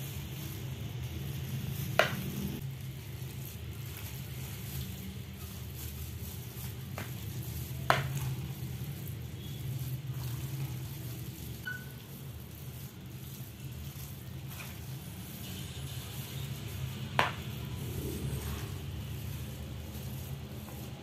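Metal spoon stirring and scraping a thick, crumbly dough of glutinous rice flour, grated coconut and mashed pumpkin in a bowl, over a steady low hum. Three sharp knocks of the spoon against the bowl are spread through it.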